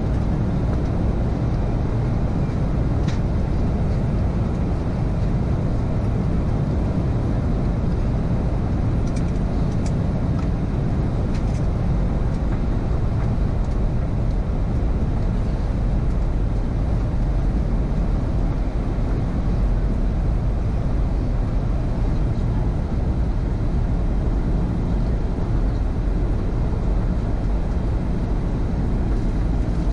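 Steady low cabin rumble of a Boeing 737-800 in descent, with engine and airflow noise heard from inside the cabin. A few faint ticks come about 3 seconds in and around 10 seconds in.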